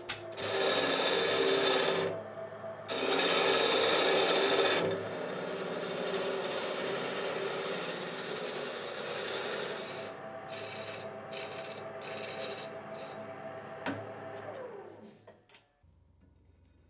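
Wood lathe running while a hand-held turning tool cuts a spinning birch handle blank: two loud cutting passes in the first five seconds, then steadier cutting that stops at about fifteen seconds.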